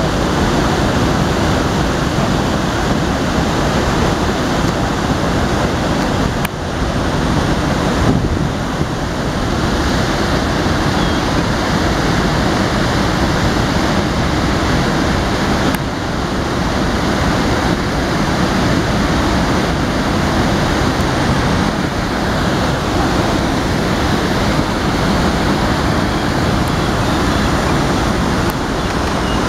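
Steady rush of a flowing river: an even, unbroken wash of water noise.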